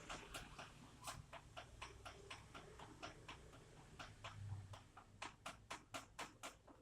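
Rainwater dripping: single drops striking a surface in a faint, irregular patter of sharp ticks, about four or five a second.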